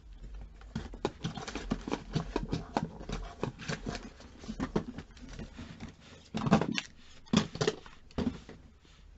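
Irregular clicking and rustling of objects and packaging being handled off camera, with two louder bumps about six and a half and seven and a half seconds in.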